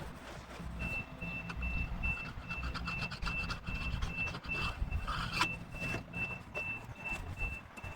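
A single-pitched high electronic beep repeating evenly about two and a half times a second, starting about a second in, over a low rumble and scattered knocks.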